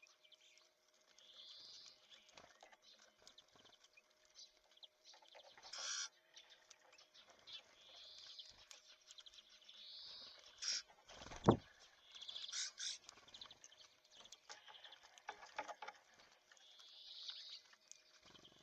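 Small songbirds at a feeder giving faint short calls, repeated every few seconds, over scattered light taps and clicks. One sharp thump about halfway through is the loudest sound.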